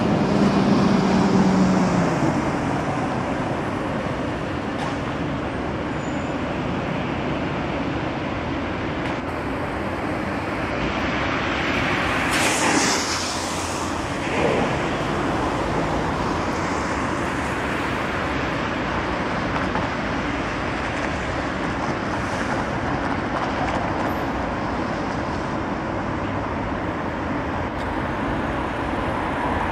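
Steady rumble of vehicle traffic. A low hum fades out in the first two seconds, and a brief louder rush comes about twelve seconds in.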